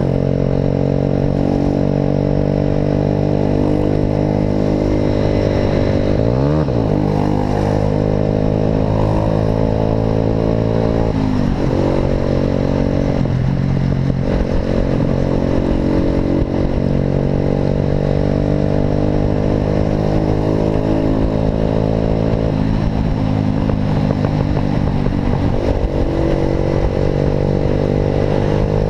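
Motorcycle engine running through an Atalla aftermarket exhaust at steady revs. Its pitch dips and climbs back sharply about six seconds in, then drops around eleven seconds in.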